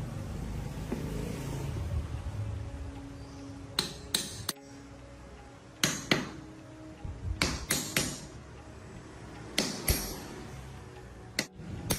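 Sharp metallic taps and clinks, coming in quick clusters of two or three, each with a short ring, over a low hum in the first few seconds.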